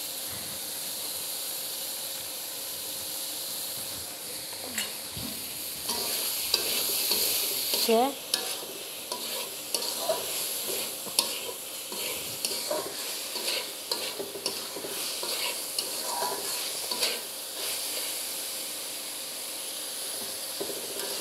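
Carrot and cauliflower sizzling in oil in a large metal wok on a gas burner, with a steady hiss. From about four seconds in, a metal spatula scrapes and clinks against the pan again and again as the vegetables are stirred.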